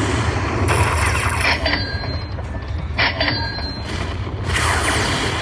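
Aristocrat Lightning Link slot machine's sound effects during its hold-and-spin feature: a steady whirring spin sound over a low hum, with short chimes about a second and a half in and again near three seconds as reels land.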